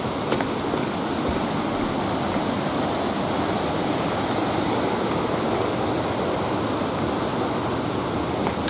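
Creek water rushing steadily over shallow riffles, with a few footsteps on wooden deck boards near the start.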